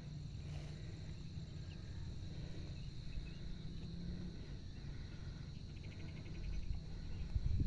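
Outdoor hillside ambience: a steady high-pitched insect drone over a low rumble on the microphone, with a short run of rapid chirring about six seconds in.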